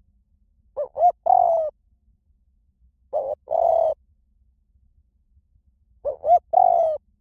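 Spotted dove cooing: three calls a few seconds apart. Each call is one or two short coos followed by a longer, slightly falling coo, the high-pitched ('small-voiced') call used as playback to lure wild doves and to train a decoy dove to call back.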